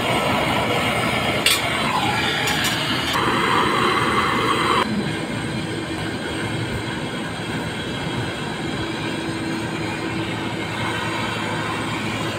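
Handheld gas torch on a yellow cylinder burning with a steady rushing hiss while brazing the copper pipe joints of a replacement electronic expansion valve. A few clicks come about one and a half to three seconds in, and a higher hiss joins for under two seconds a little after.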